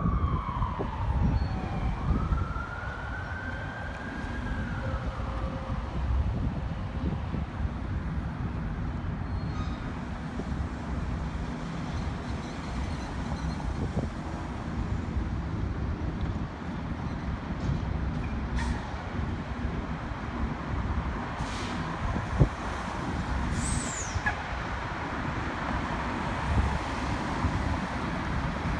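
Fire apparatus siren wailing at a distance: a falling glide, then a slow rise and fall in the first few seconds, faint again later, and starting to rise loudly right at the end. Under it runs a steady low rumble of road noise, the loudest part of the sound.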